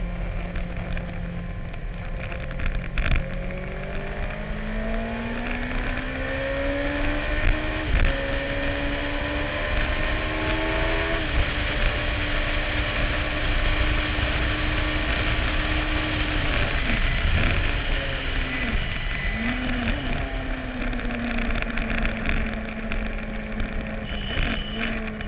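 Onboard sound of a Suzuki-engined racing sidecar at racing speed: the engine note climbs through the gears with upshifts in the first half, holds high and steady, drops as it slows about two-thirds of the way through, then climbs again. Heavy wind noise on the microphone throughout.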